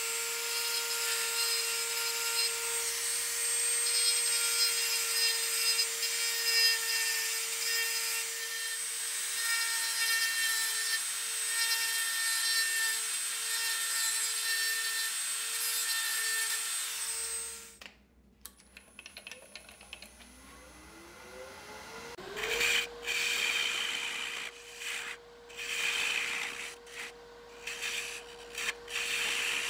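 A handheld rotary tool with a small burr grinding the edge of a walnut piece: a steady high whine with rasping, which cuts off after about 17 seconds. Then a wood lathe whines up to speed and a turning tool scrapes the spinning wood in short, irregular strokes.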